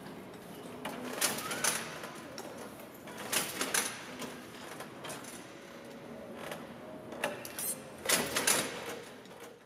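Scattered, irregular mechanical clicks and knocks over a faint steady background, the loudest pair near the end.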